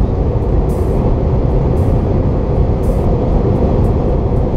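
Steady, loud rushing of an automatic car wash's air dryers, heard from inside the car.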